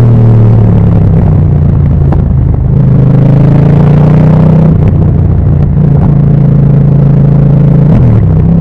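Motorcycle engine running under way at steady revs, heard loud and close, its pitch dipping briefly about two seconds in and again near the end.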